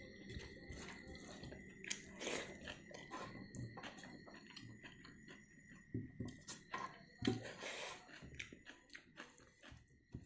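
Close-up chewing and biting of food, with many small wet mouth clicks and a few louder bites.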